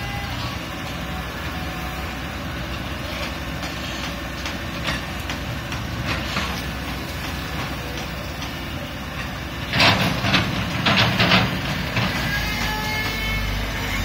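Caterpillar 320C hydraulic excavator's diesel engine running steadily as it digs. About ten seconds in there is a quick cluster of loud knocks and clanks.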